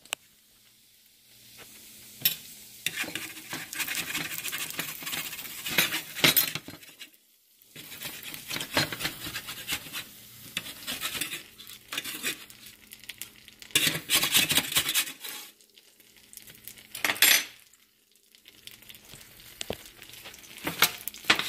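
Bacon sizzling in hot grease on a metal sheet pan, in stretches of hiss a few seconds long, with a metal utensil clinking and scraping on the pan as the strips are lifted.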